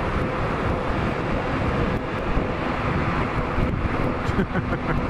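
Wind rushing over a helmet-mounted microphone on a sportbike at road speed, with the motorcycle's engine running at a steady cruise underneath.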